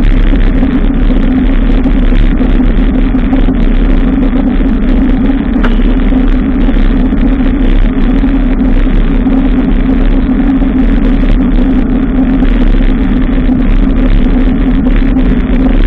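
Steady, loud road noise of a bicycle ride along a busy city avenue: a constant hum and rumble with motor traffic mixed in, unbroken throughout.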